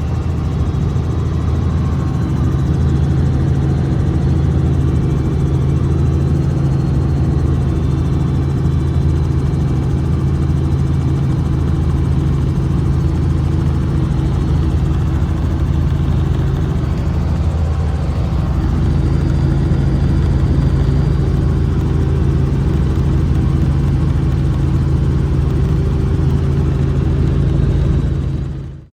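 An engine running steadily with a low droning hum, cutting off abruptly at the very end.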